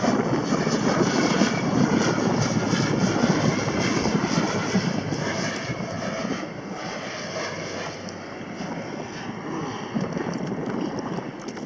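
Airplane flying overhead, its engine drone steady at first and slowly fading over the last few seconds.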